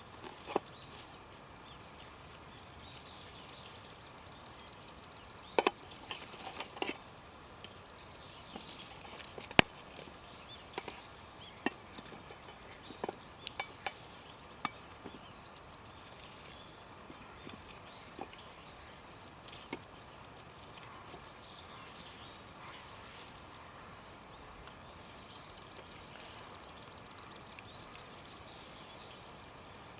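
Irregular sharp clicks and knocks, a few loud ones clustered in the first half, over a faint steady background hiss.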